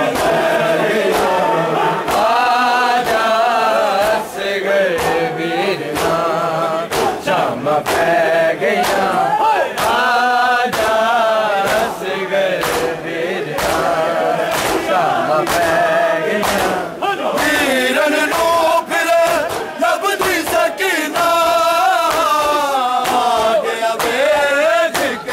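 A crowd of male mourners chanting a noha (Shia mourning lament) in unison. Many sharp slaps of hands beating on bare chests (matam) run through the chant, falling more often and more regularly in the second half.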